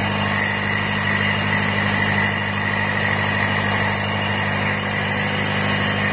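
Bare multi-cylinder diesel engine, freshly reassembled, idling steadily on a stand.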